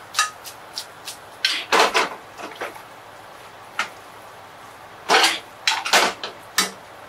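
Metal tongs clicking and clattering against a metal frying pan as spaghetti is tossed in its sauce: scattered single clicks, then two busy clusters of clatter, one around two seconds in and one near the end.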